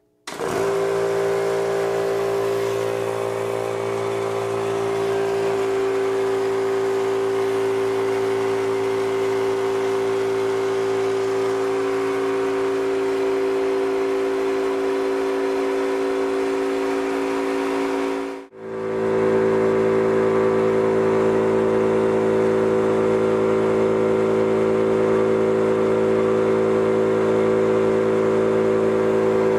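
Unbranded high-pressure electric piston air compressor starting up and running with a steady hum while it pumps a small scuba tank up toward 3000 PSI. It cuts out for a moment about 18 seconds in and then runs on.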